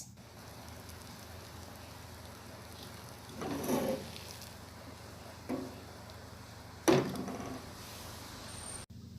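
Quiet room tone broken by three brief knocks or handling noises, the first and last a little longer, then a sudden drop to near silence shortly before the end.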